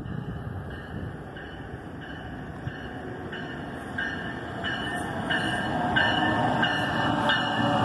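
NJ Transit ALP-46 electric locomotive approaching with its electronic bell ringing steadily, about three strikes every two seconds, over the rumble of the train, which grows louder from about halfway as it draws near.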